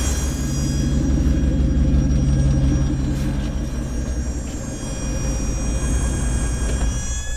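1996 Dodge Dakota engine running with a steady, thin, high-pitched squeal over its rumble; the owner has not found what is squealing. The rumble and the squeal stop together right at the end.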